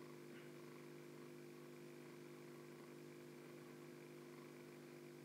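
Faint, steady hum of a small aquarium filter motor, a few unchanging low tones with no other events.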